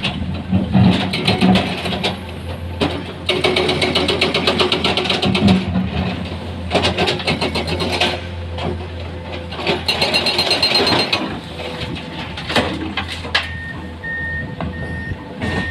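Komatsu excavator's diesel engine running under load, with repeated bursts of rattling and scraping from the working machinery. Near the end a reversing alarm starts beeping steadily.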